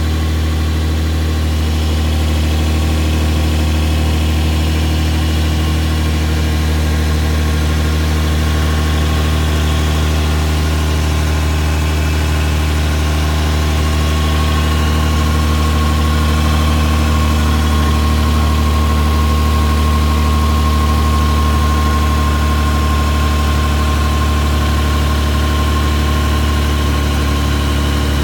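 Lexus LX450's 4.5-litre inline-six engine idling steadily, with an exhaust leak.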